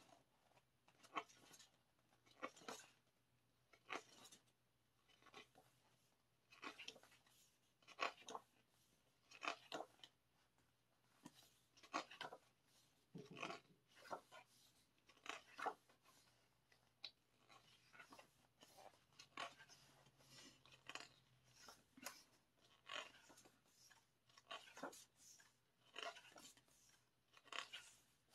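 Pages of a photobook being turned one after another: a soft paper flick or rustle every second or so.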